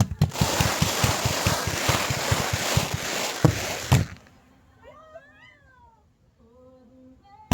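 Fireworks crackling rapidly over a steady hiss, ending in two sharp bangs, then dropping off to a few faint rising-and-falling whines.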